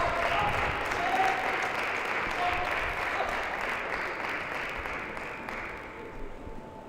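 Crowd applauding and cheering after a point is won, with a few shouts in the first seconds, dying away over about six seconds.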